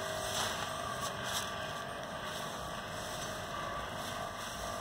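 Digging into the soil of a garbage-bag potato planter: a few brief rustles and scrapes in the first two seconds, over a steady rushing background noise.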